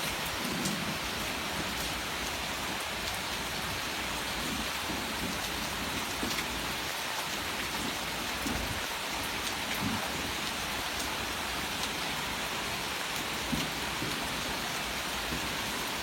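Heavy rain pouring steadily, with a few brief low thumps scattered through it.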